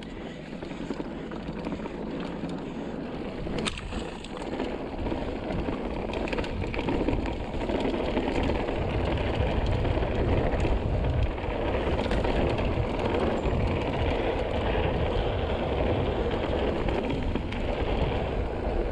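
Mountain bike rolling along a dirt singletrack: a steady noisy rush of tyres on dirt and air over the microphone, with a few sharp clicks of the bike rattling. It grows louder about a third of the way in.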